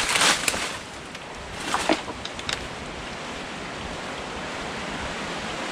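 Steady wind noise, slowly growing louder, after a short rustle at the start.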